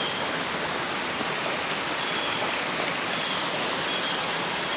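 Mountain creek water rushing and splashing over rocks, a steady, even sound.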